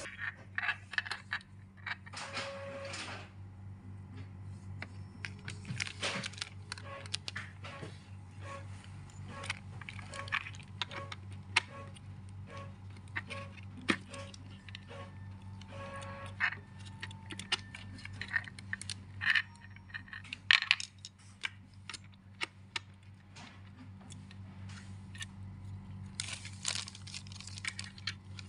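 Cables being plugged into the rear connectors of a benchtop pH meter amid plastic packaging. It sounds as scattered clicks and knocks, with bursts of crinkling plastic about two seconds in and near the end.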